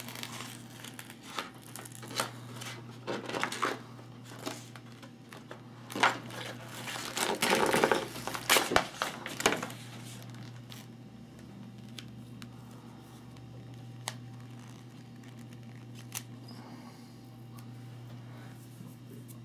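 Thin clear plastic screen-protector film crinkling and crackling as it is peeled off its backing sheet and handled, in irregular bursts that are busiest in the first half. After that come only a few faint ticks over a low steady hum.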